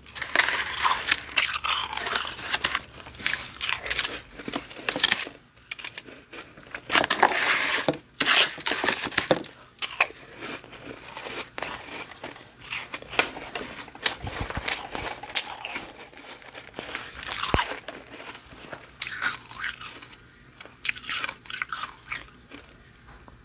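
Freezer frost being bitten and chewed close to the microphone: dense, crisp crunching in bursts, thinning to a few softer crunches near the end.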